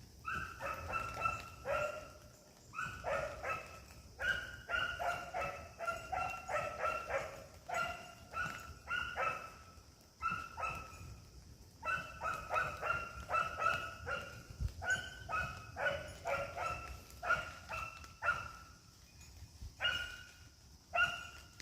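A puppy barking in fast runs of high-pitched yaps, several a second, with short pauses between the runs.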